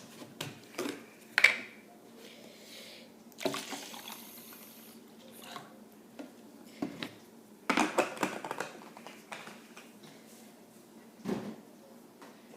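Scattered knocks and clatters of a cup and a lemonade bottle being handled, with a short stretch of liquid pouring into the cup about three and a half seconds in.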